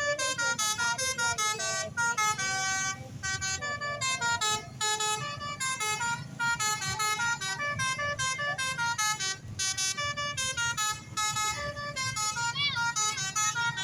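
Basuri telolet multi-tone bus horn playing a fast melody of short notes that step up and down in pitch, with a steady low rumble beneath.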